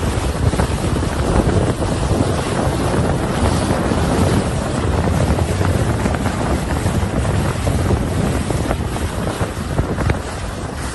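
Wind buffeting the microphone out on open water: a loud, steady rushing rumble that flutters unevenly, with no engine tone heard.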